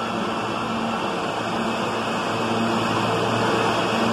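R160 subway train running along a station platform: a steady rush of wheels on rail with a low tone that comes and goes.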